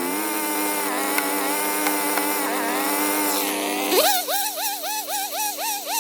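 Background electronic music: a steady droning chord under a wavering lead line, which about four seconds in turns into a swooping figure repeated about twice a second.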